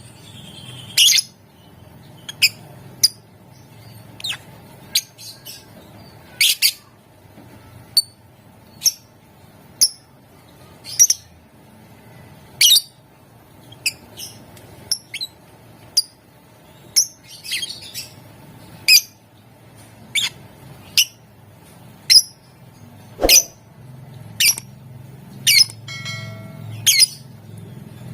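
Lovebird calling in short, sharp, high-pitched chirps, about one or two a second, with a quick run of rapid ticks near the end. A faint low hum runs underneath.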